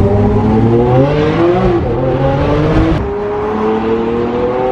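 Lamborghini Aventador's V12 engine accelerating hard, heard from inside the open-top cabin: its pitch rises steadily, drops at an upshift about two seconds in and climbs again. The sound breaks off about three seconds in and another rising pull follows.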